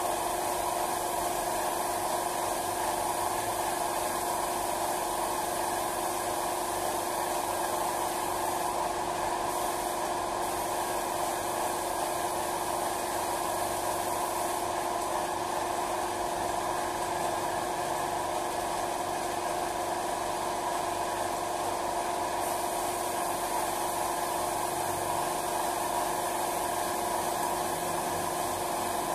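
Paint spray gun fed by a compressed-air hose, spraying paint onto wooden wardrobe panels: a steady hiss of air over a constant hum with steady tones.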